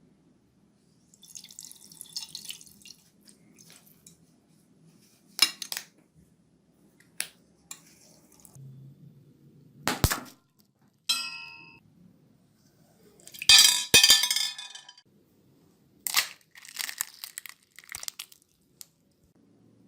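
Slime being handled, with a string of sharp clicks, crackles and pops. A loud crackling burst comes about 14 seconds in, and a brief ringing tone about 11 seconds in.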